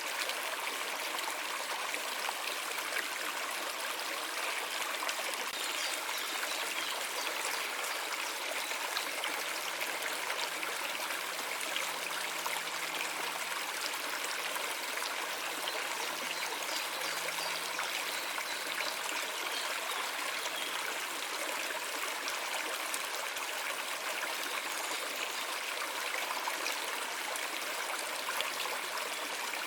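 Stream flowing, a steady, unbroken rush and trickle of water.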